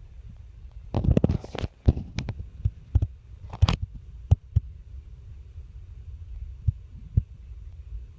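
Hampton Bay Bay Island ceiling fan running with a low, steady rumble. About a second in comes a burst of irregular clicks and knocks lasting a few seconds, followed by occasional single ticks.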